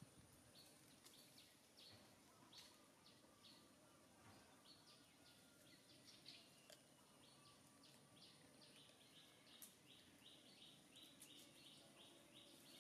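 Faint outdoor ambience of small birds chirping, with short high chirps scattered throughout and a quick, even run of about four chirps a second in the last few seconds, over a steady thin high tone.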